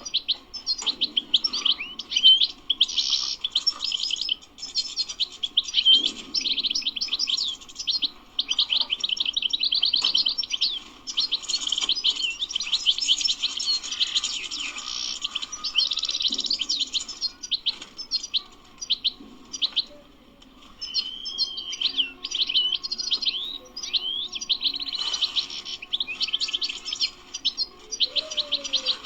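European goldfinch singing: a long, fast, twittering song of rapid trills and chirps, with a short pause about two-thirds of the way through.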